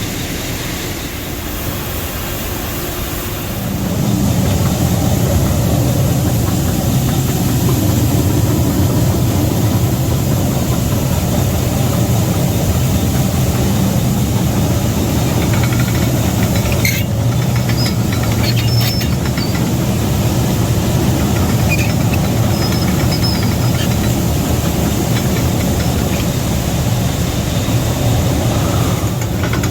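Grain-handling machinery or an engine running steadily with a low hum, getting louder about four seconds in and then holding; a single brief click about halfway through.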